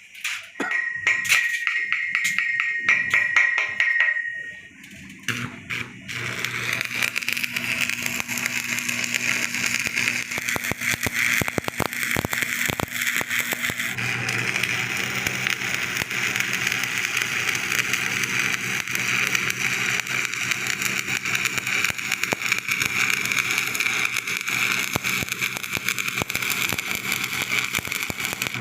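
Electric arc welding on a steel pipe joint: a steady crackling sizzle over a low hum. It sets in about six seconds in, after a short spell of a high whine with rapid clicks.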